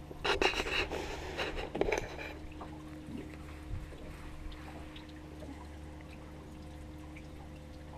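Water splashing and sloshing loudly for the first two seconds or so, then quieter, with a steady low hum underneath throughout.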